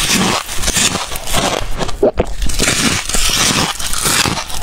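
Close-miked crunching of freezer frost as a large chunk is bitten into and chewed, a dense run of crisp crackling crunches.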